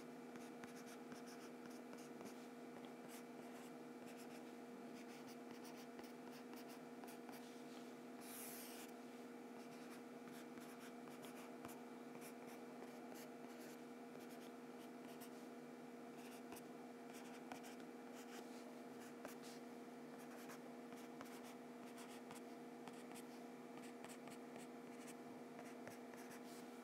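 Marker pen writing faintly on paper, scattered short strokes, over a steady low electrical hum.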